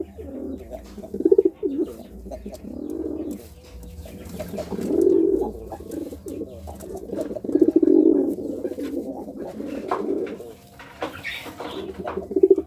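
Domestic pigeon cooing in courtship: a series of low, repeated coos every couple of seconds.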